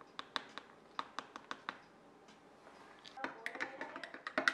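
Metal spoon clinking against a ceramic mug while hot chocolate is mixed: a run of light separate taps in the first second and a half, then a denser stretch of clinks and scraping from about three seconds in.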